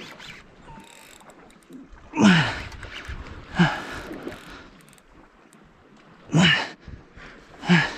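A man's heavy grunting breaths, four of them, as he strains against a hooked bluefin tuna. Between them come the mechanical winding and clicking of a Daiwa Saltiga spinning reel being cranked.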